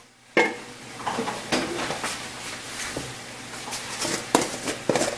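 Kitchen handling noises: irregular clinks and light knocks of containers and utensils being picked up and set down on the counter.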